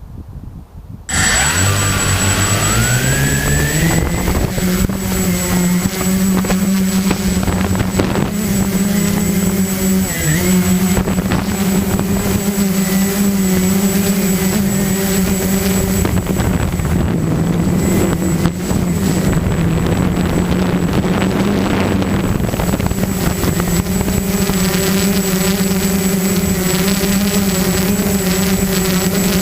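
Walkera QR-X350 quadcopter's electric motors and propellers starting about a second in, the pitch rising over a few seconds, then holding a loud steady buzzing drone in flight, with a thin high tone above it.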